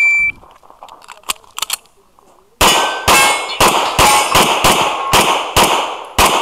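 An IPSC shot timer gives one short high beep as the start signal. About two and a half seconds later a handgun fires a string of about ten shots at two to three a second, with steel targets clanging from the hits.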